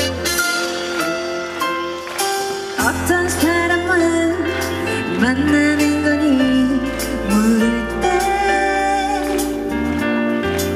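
A Korean pop song played loud over a stage sound system, with a woman singing a melodic line over the band from about three seconds in. The bass drops out for the first few seconds, then comes back in.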